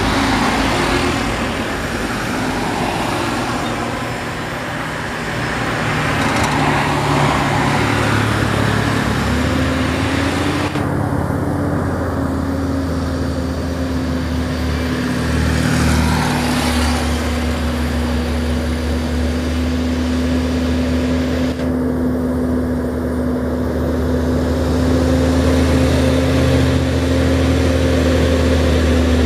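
Isuzu truck's diesel engine droning at steady revs as it comes slowly up to and past the roadside, with passing cars and motorcycles mixed in, most of all in the first few seconds.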